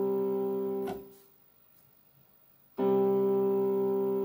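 C major chord played on an electronic keyboard, held steady and released about a second in, then struck again about three seconds in and held.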